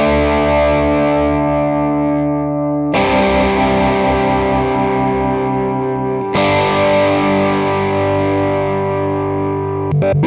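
Electric guitar played through an EarthQuaker Devices Spatial Delivery envelope filter in its sample-and-hold setting, pushed by a drive pedal. Distorted chords are struck and left ringing, with a new chord about three seconds in, another about six seconds in, and a fresh attack near the end.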